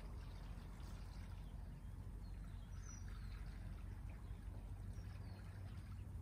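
Sugar water poured from a glass jar into a beehive feeder: a steady trickle of liquid over a low, even rumble.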